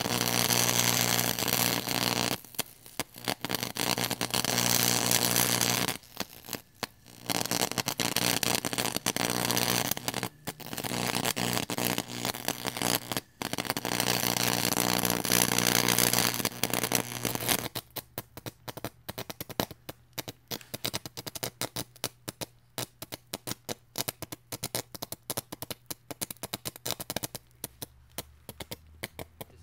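Electric arc in a homemade arc furnace over molten rock salt: a loud, crackling buzz over a steady low hum, cutting out briefly several times. About two-thirds of the way through it drops to a quieter, broken, irregular crackling.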